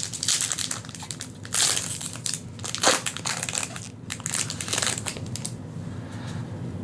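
Crinkling and crumpling of a foil trading-card booster pack wrapper being handled and opened, in several loud bursts over the first five seconds, then quieter.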